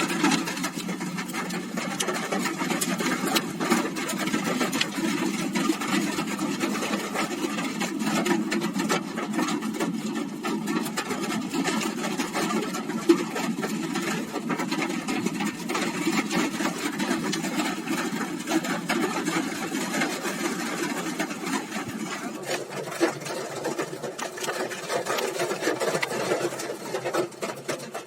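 Heavy rain falling, a dense steady rapid patter.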